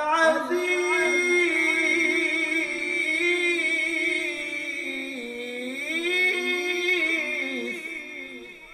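A man reciting the Quran in the melodic tilawat style, drawing one phrase out into a long held note. The pitch turns and dips about five seconds in, and the voice fades away near the end.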